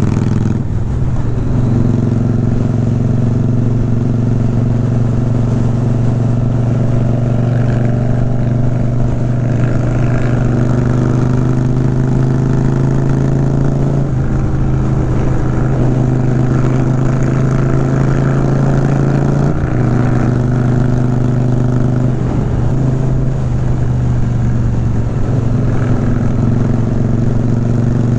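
Motorcycle engine running steadily at road speed, heard from the rider's own bike with wind and road rush. The engine note dips and picks up again a few times as the throttle is eased and opened.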